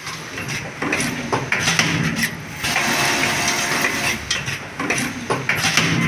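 A small machine running, with clicking and clattering in stretches over a low hum.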